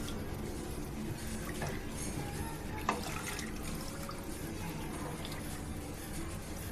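A wooden spatula stirring a thin, watery yogurt and gram-flour mixture in an aluminium pot, the liquid sloshing steadily, with one sharp knock of the spatula against the pot about three seconds in.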